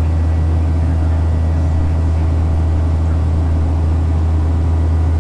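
Cabin noise of a Boeing 737-800 in flight, heard inside the cabin: its CFM56-7B turbofan engines and the air rushing past the fuselage make a loud, steady low drone.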